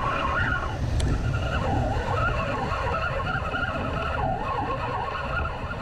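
Wind rumbling steadily on an action-camera microphone, with wavering higher sounds over it and a single click about a second in.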